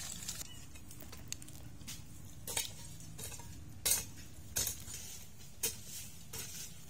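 Scattered sharp clicks and crackles of dry leaves, twigs and loose soil as a baby monkey scratches and steps about on the ground, about one click every half second to second, over a faint steady low hum.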